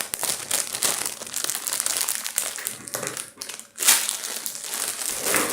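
Crinkly material being crumpled and handled, a continuous crackling crinkle with one sharper, louder crackle a little before four seconds in.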